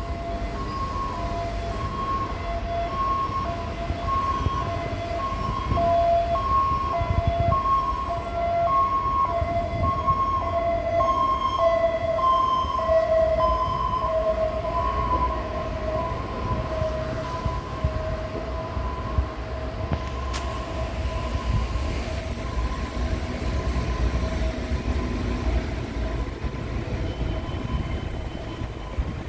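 An electronic warning bell rings in an even two-tone alternation, high then low, about once a second. It grows fainter in the last third. Underneath is the low running hum of an EMU700-series electric commuter train standing at the platform.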